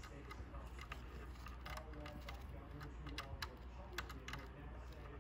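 Faint, scattered light clicks and rustling of fingers handling wires and plugging a small plastic wire connector onto a power supply's control lead.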